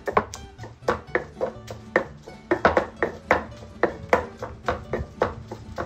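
Stone pestle pounding and grinding serrano chiles, garlic and salt in a volcanic-stone molcajete: sharp stone-on-stone knocks, uneven, about three a second.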